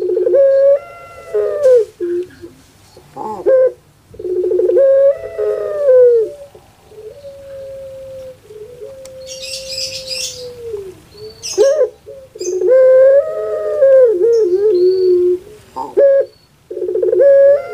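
Female ringneck dove (puter pelung) cooing over and over in rhythmic, wavering phrases of about two seconds each, the call the title calls 'crying'. Around the middle is one long, level coo that falls away at its end.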